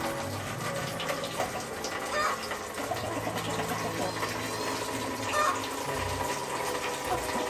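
Water running from a wall tap and splashing into a plastic basin of dishes, a steady rush.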